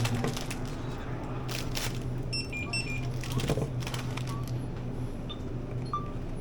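A steady low hum with a cluster of short, high electronic beeps about halfway through and a few more near the end.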